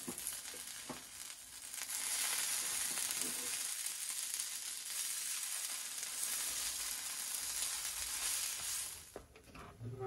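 Shredded hash-brown potatoes frying and sizzling in a cast-iron skillet, turned with a metal spatula. A few short scrapes come in the first two seconds. The sizzle then gets louder, holds steady, and stops about nine seconds in.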